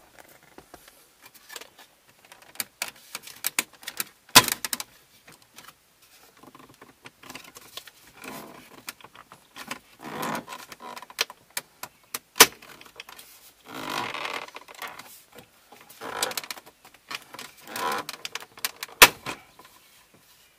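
Plastic centre-dash bezel of a 2003 Ford Mustang being pried off by hand: scraping and creaking of plastic, with sharp snaps as its plastic retaining clips pop free, three of them loud.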